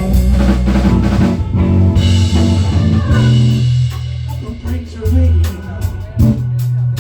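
Instrumental band music between sung lines: guitar over bass and a drum kit keeping a steady beat.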